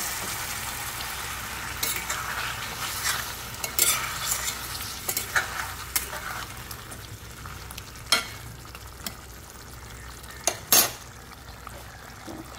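Chicken curry frying in a stainless steel kadai, sizzling while a metal spatula stirs it, with sharp clicks and scrapes of the spatula against the pan. The strongest clicks come about eight seconds in and again near eleven seconds, and the sizzle thins out over time. This is the meat being fried down before water is added.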